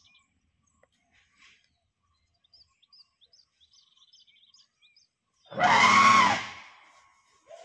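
A wild Asian elephant trumpets once, a loud call of a little over a second that rises and falls in pitch, about two-thirds of the way in. Faint bird chirps repeat before it.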